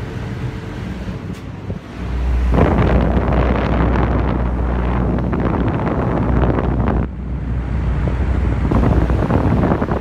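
Saijo Denki air conditioner's outdoor unit running with a steady low hum. From about two seconds in, the condenser fan's air blast hits the microphone as loud wind rushing and buffeting. It eases briefly around seven seconds, then comes back.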